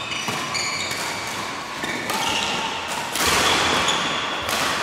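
Badminton rally in an echoing sports hall: sharp racket hits on the shuttlecock and short, high-pitched squeaks of court shoes on the floor as the players move, with the hall noise getting louder about three seconds in.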